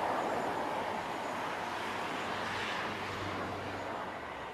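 Steady outdoor background noise, a continuous rushing hiss with a faint low hum underneath, slowly easing down towards the end.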